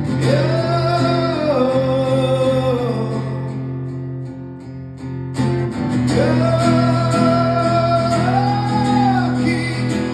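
Live music: a voice sings two long, drawn-out phrases over guitar chords, with a short lull between them a little before the midpoint.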